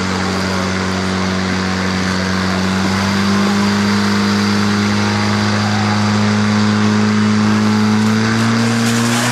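Portable fire pump's engine running at high revs, pushing water through the attack hoses. Its pitch creeps slowly upward, with a small jump near the end as the water reaches the nozzles.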